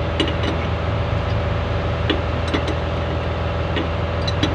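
An engine idling steadily with a low, even hum, with a few light, sharp clicks scattered through it.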